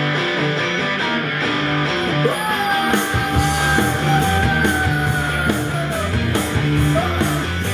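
A rock song with guitar, played loud through a pair of restored 1970s Philips speakers driven by a TPA3118 Bluetooth amplifier. Drums come in about three seconds in, under a long held lead note.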